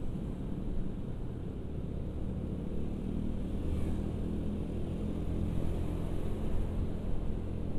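Carburetted Honda Beat scooter's engine running steadily at riding speed, a low drone under road and wind noise on the rider-mounted microphone.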